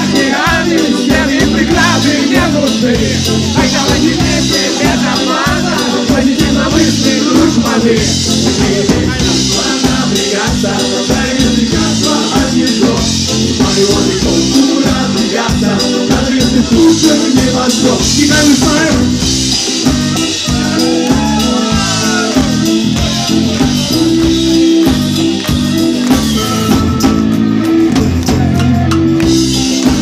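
Live rock band with electric guitars, accordion and drums playing a fast song with singing, loud and close to the stage.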